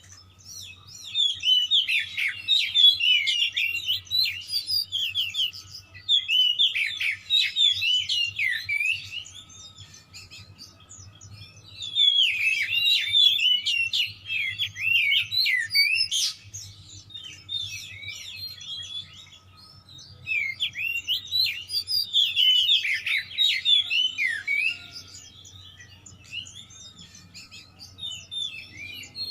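Oriental magpie-robin (kacer) in full, agitated song: fast, varied whistles and chattering phrases in about five bursts of two to five seconds, with short pauses between them. A faint steady low hum runs underneath.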